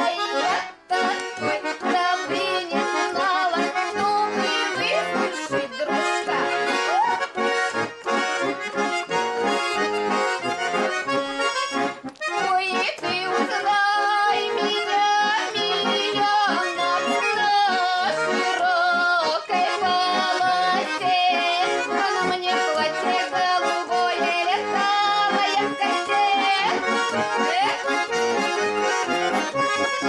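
Russian folk tune played on a garmon and a bayan (button accordions), lively and steady, with a woman's voice singing along. The playing breaks off for a moment about a second in and again about twelve seconds in.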